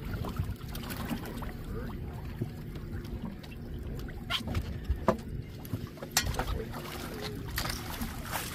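Outboard motor running steadily at trolling speed, with several sharp knocks and clicks between about four and eight seconds in.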